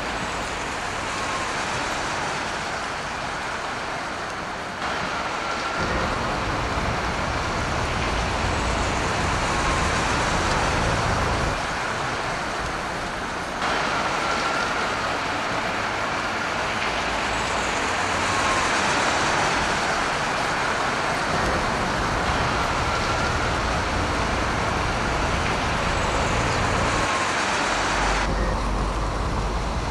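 Street traffic noise: a steady, hissy rumble of road vehicles that changes abruptly about five seconds in, again about thirteen seconds in and near the end, as if spliced from separate recordings.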